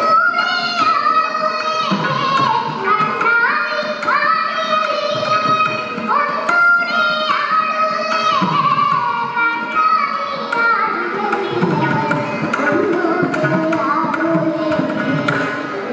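Carnatic music: a chorus of children singing a devotional song with violin accompaniment, the melody sliding in ornamented glides over mridangam and khanjira strokes.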